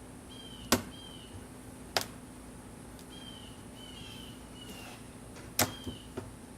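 Beehive lid and parts popping loose as the hive is pried open: three sharp pops, the loudest about a second in, with a couple of smaller ones near the end. A steady low hum of honeybees runs underneath, with short bird chirps repeating.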